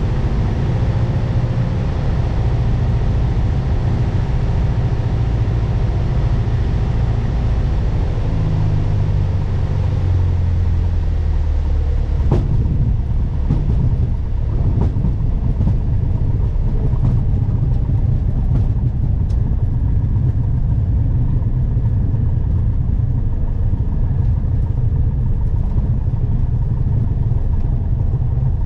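Piper PA-28's single piston engine heard from inside the cabin, its note falling as the power comes back. About halfway through there is a sharp knock as the wheels touch down, followed by a bumpy rumbling roll across the grass runway.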